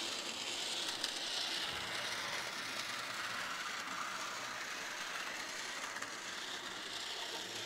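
Bachmann HO scale DeWitt Clinton model train running on sectional track: the small electric motor and gearing in the tender give a steady mechanical whir. There is one small click about a second in.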